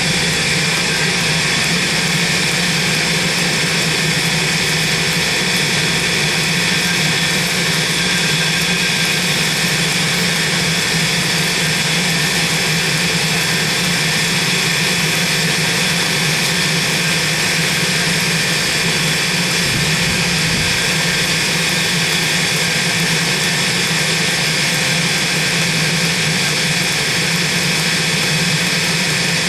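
Forge running: a loud, steady rushing noise with a low hum under it, unchanging throughout.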